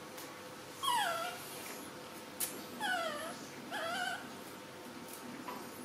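Baby macaque giving three short, high calls, each falling in pitch: one about a second in, then two close together around three and four seconds in. A single sharp click comes between them.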